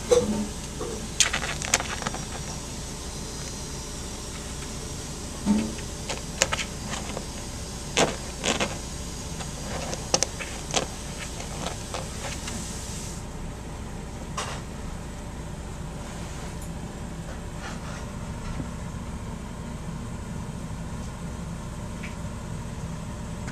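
A cat's paws tapping and scratching against a clear plastic enclosure in scattered, irregular taps, several in the first half and fewer later, over a steady low background hum.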